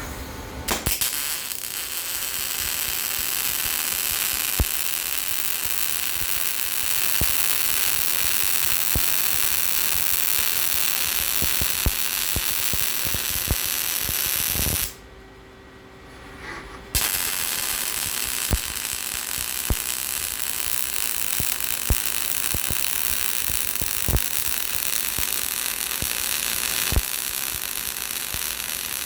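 Robotic arc welding: the arc gives a steady crackling hiss with scattered sharp pops, cuts off suddenly about halfway through, and strikes again about two seconds later.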